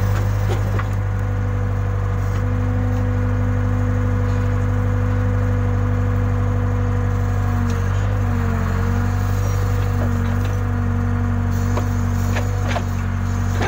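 Case 580K backhoe loader's diesel engine running steadily, with a steady whine over it that wavers in pitch about eight seconds in and a few faint knocks.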